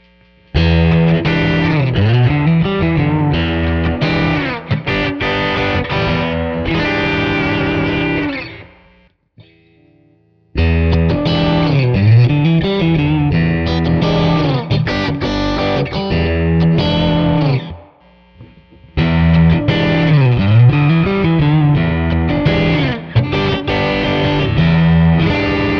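Palir Stinger electric guitar with three single-coil pickups playing the same phrase three times, with short breaks between. The pickup selector moves on a position between takes.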